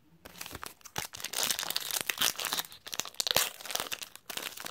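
A trading card pack's wrapper being torn open and crinkled by hand, a dense crackling that starts about a quarter second in and goes on with brief pauses.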